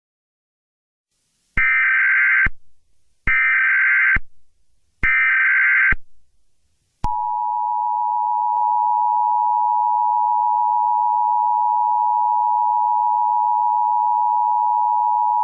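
Emergency Alert System tones: three short bursts of SAME header data chirps, each just under a second and about a second apart, then the EAS two-tone attention signal, a steady dual tone that starts about seven seconds in and holds for about eight seconds before cutting off.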